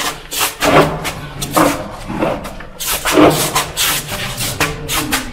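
Irregular scuffing and rubbing, about two strokes a second, over a steady low hum.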